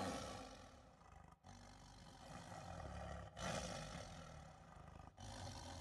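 Large Presa Canario dog growling and snarling in protection training, in several short stretches split by abrupt breaks.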